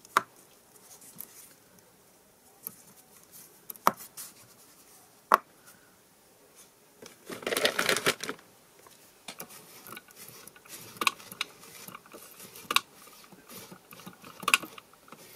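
Small round magnets snapping down one at a time onto the metal base of a stamping platform: three sharp clicks in the first five seconds or so. A longer rustling stretch follows, then soft rubbing and light knocks as a clear acrylic stamp on the platform lid is wiped with a cloth.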